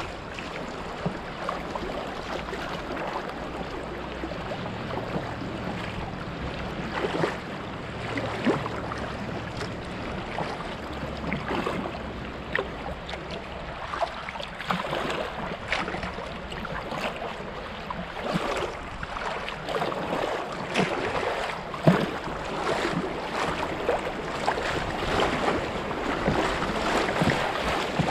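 River water rushing and splashing around a moving kayak, with frequent irregular small splashes.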